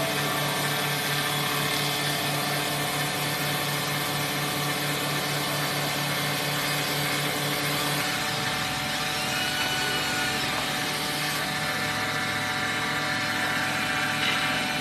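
CNC wood-turning lathe running, its cutter shaving a spinning wooden column: a steady machine hum over the hiss of cutting wood. The hum's pitch shifts about eight seconds in.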